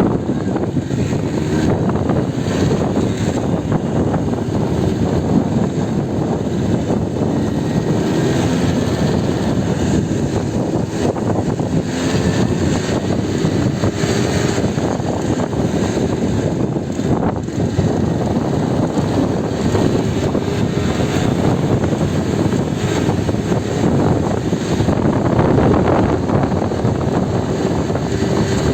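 Strong wind buffeting the microphone in a loud, unsteady rumble, over the noise of a heavily churning sea.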